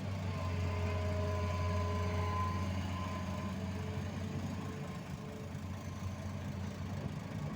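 Heavy diesel engine running steadily at a low idle, with faint thin whining tones over the hum in the first few seconds.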